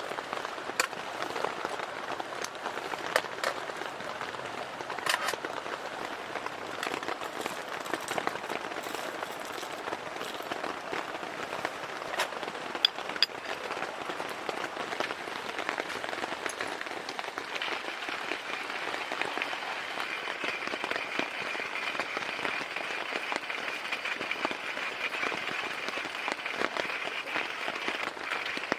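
Rain pattering steadily, with scattered sharp clicks. A steady higher hiss joins a little past halfway.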